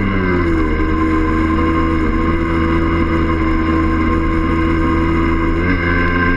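1982 Yamaha DT50M's small two-stroke single-cylinder engine running under way, heard from on the bike. The engine note drops about half a second in, holds steady, then rises slightly near the end.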